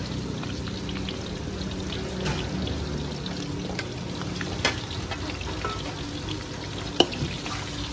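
Bánh xèo frying in oil in several steel woks: steady sizzling, with a few sharp clicks of metal spatulas against the woks, the loudest about seven seconds in.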